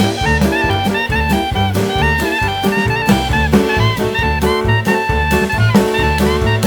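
Background jazz music: a saxophone melody over a steady drum-kit beat and bass.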